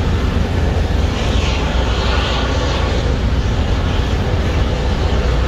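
Steady, loud roar with a heavy fluttering low rumble that never lets up: wind on the microphone mixed with the running machinery of the vessel and the platform.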